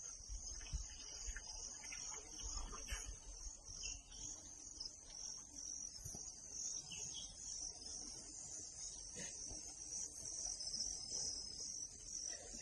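A steady, high-pitched chorus of insects chirring from the surrounding forest, with low rumbling handling noise underneath.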